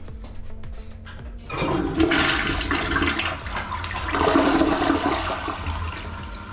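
Newly installed push-button toilet flushing: water rushes into the bowl about a second and a half in, swirls loudly for a few seconds and tapers off near the end.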